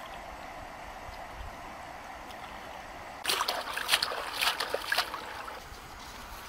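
River water trickling steadily, with a couple of seconds of splashing and sloshing about halfway through as a wicker basket of peeled boiled eggs is dipped and swished in the water.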